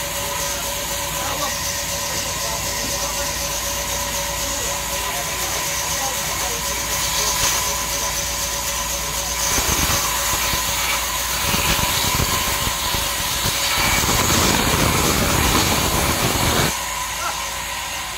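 Sawmill band saw running with a steady tone, then cutting through a jackfruit log from about halfway in. The cut is louder and harsher and stops sharply near the end, leaving the saw running on.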